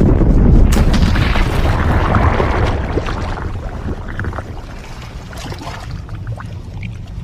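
Film sound effect of a huge explosive destruction: a sudden blast, then a deep rumbling roar with scattered crackles of debris, slowly fading over several seconds.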